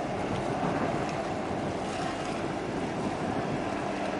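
Steady wind noise on the microphone over water washing, with the low, steady rumble of a large container ship moving past close by.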